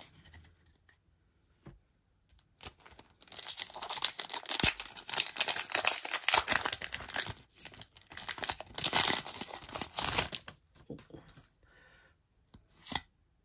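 Foil wrapper of a Pokémon TCG booster pack being torn open and crinkled by hand, a dense crackling that starts about three seconds in and stops about ten seconds in, followed by a few faint ticks.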